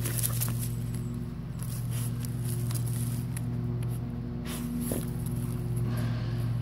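Carolina Dogs digging in soil, a few brief scratches and scrapes of paws and noses in the dirt, over a steady low machine hum.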